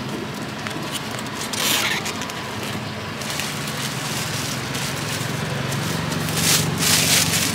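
Plastic carrier bag crinkling and rustling as it is handled, loudest in two bursts near the end, over a steady low hum of street traffic.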